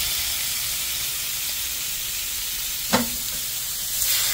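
Thin seasoned beef steaks sizzling steadily on a hot stovetop griddle as raw slices are laid on, with a sharp click about three seconds in and the sizzle swelling near the end as another slice goes onto the metal.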